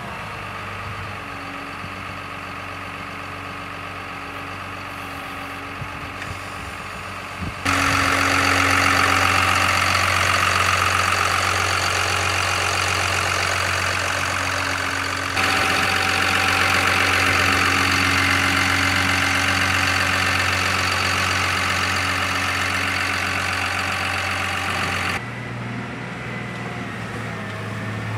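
Caterpillar IT28G wheel loader's diesel engine idling steadily. It becomes much louder about a third of the way in, heard up close at the open engine bay, and near the end it is quieter and from further off, with the pitch rising as the loader drives.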